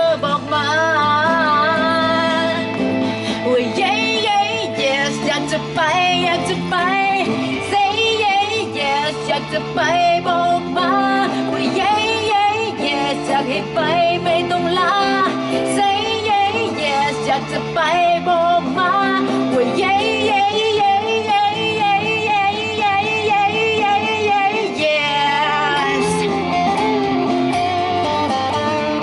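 A woman singing a Thai pop song live into a microphone, with vibrato on the held notes, accompanied by an electric guitar.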